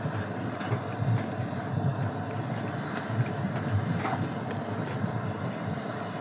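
A spoon stirring thick batter in a metal mixing bowl, with a few faint clinks, over a steady rushing background noise with irregular low buffeting.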